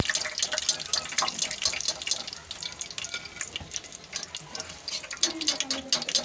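Hot oil for deep-frying pakoras sizzling and crackling, a dense spatter of fine pops that eases a little after the first couple of seconds.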